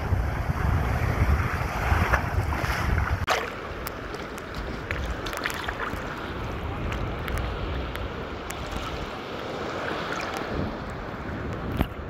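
Small surf waves washing around in shallow sea water, with wind buffeting the microphone strongly for the first few seconds, then a steadier wash of water with a few sharp splashes.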